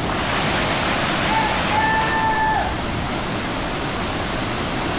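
Steady, loud rush of a waterfall pouring into a pool. About a second and a half in, a long held high call rises above it and drops in pitch at the end.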